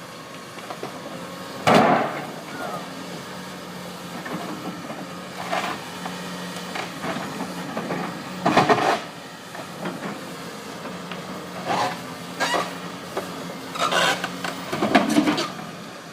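Excavator engine running steadily under load, with a series of sudden loud clanks and bangs of steel as the machine tears at the bridge's beams and strap braces.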